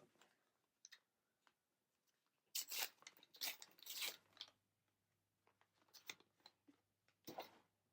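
A trading card booster pack wrapper being torn open and crinkled, in a cluster of crackly tearing and rustling about two and a half to four seconds in, with a shorter rustle near the end.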